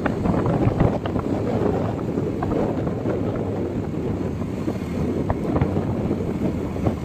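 Wind buffeting the microphone over the running noise of a vehicle on the move, with scattered small knocks and rattles.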